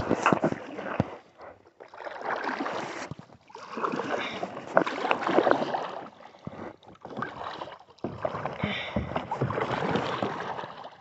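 Kayak paddling: the paddle dipping and splashing through the water in a series of uneven swells, with small sharp knocks between them.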